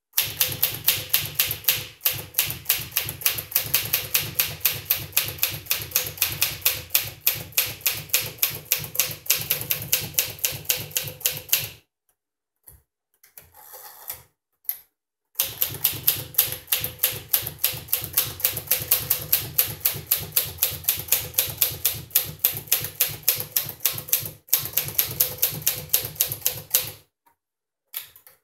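1957 Smith Corona Silent Super manual typewriter being typed on at a steady, fast pace, its keys and type bars clacking about four to five times a second. The typing comes in two long runs with a pause of about three seconds roughly twelve seconds in.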